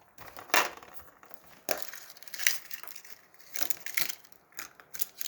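Plastic candy wrappers crinkling in irregular bursts as the wrapped sweets are handled.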